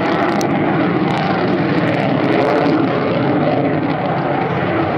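Loud, steady jet noise from a Finnish Air Force F/A-18 Hornet's twin General Electric F404 turbofan engines as the fighter flies a display manoeuvre.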